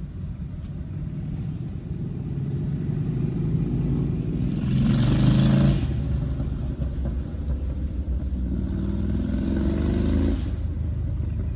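Low steady motor-vehicle rumble, with two vehicles passing close by: the louder pass comes about five seconds in, and a weaker one around nine to ten seconds.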